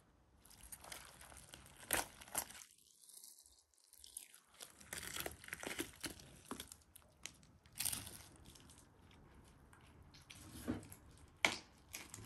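Whole roasted lamb being torn apart by hand: crisp, charred skin crackling and meat ripping from the carcass in irregular snaps and tearing sounds. The sharpest snaps come about two, eight and eleven and a half seconds in.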